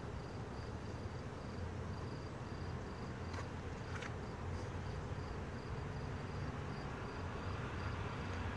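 Honey bees buzzing around an open hive, a steady hum, with a cricket chirping high and regularly, about twice a second.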